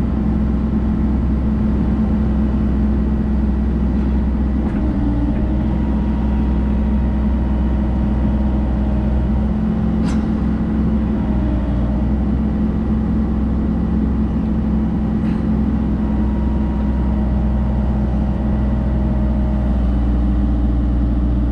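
Cat 304 mini excavator's diesel engine running steadily while its hydraulics are worked, the tone shifting slightly a few times under load. A sharp click about ten seconds in.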